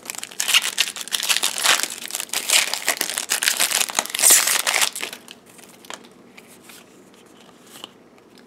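Foil wrapper of a Yu-Gi-Oh! booster pack crinkling and tearing as the pack is ripped open, for about five seconds, then only a few light clicks.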